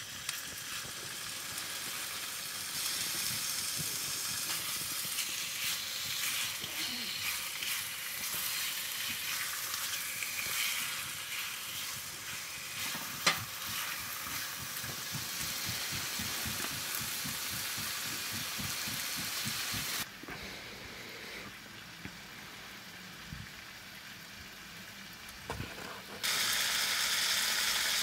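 Chicken breast sizzling and frying in a non-stick pan on a wood-burning stove, with a fork stirring and turning it; a single sharp click about halfway through. The sizzle drops suddenly about two-thirds in and comes back louder near the end.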